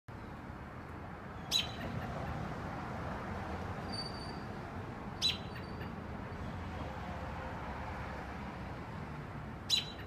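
American robin giving three short, sharp calls, one every three to four seconds, with a few faint thin high notes in between, over a steady low background hum.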